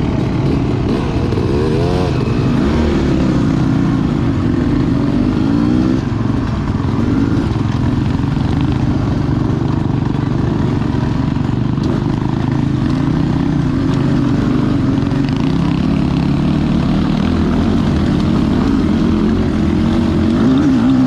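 Beta 300RR two-stroke dirt bike engine running under constantly changing throttle, its pitch rising and falling again and again.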